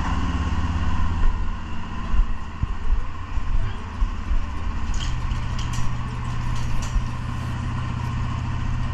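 CFMOTO CForce 600 ATV's single-cylinder engine idling in a closed garage. About four and a half seconds in, an electric garage door opener starts with a steady hum as the door rises, and a few sharp clicks follow.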